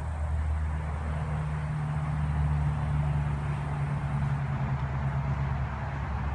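A steady low mechanical drone, its pitch stepping up about a second in and holding, over a steady hiss.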